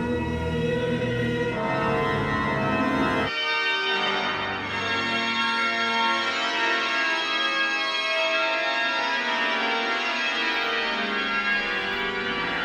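Music: sustained organ chords. The bass notes drop out about three seconds in, leaving only the higher held chords.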